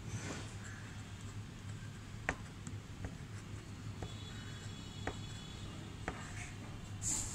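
Pen on paper: the nib ticks sharply against the sheet about once a second as small marks are inked, over a low steady hum. A brief high hiss comes near the end.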